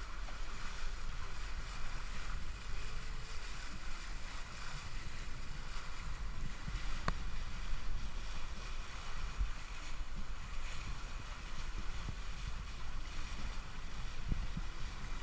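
Wind buffeting the microphone and water washing past the hull of a sailing catamaran, steady throughout, with a single sharp click about seven seconds in.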